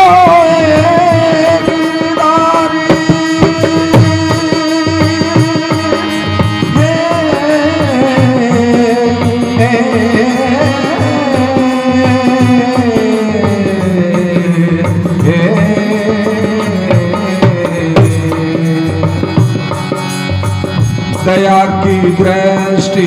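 Instrumental interlude of a Hindi devotional bhajan: a gliding melody line over a steady drum rhythm.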